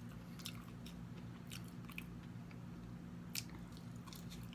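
A person chewing food close to the microphone, with scattered small wet clicks from the mouth over a faint steady electrical hum.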